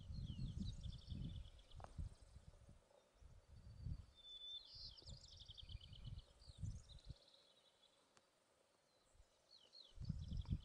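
A songbird singing short, rapid trilled phrases several times, with wind gusting on the microphone in low rumbles that ease off for a couple of seconds before returning near the end.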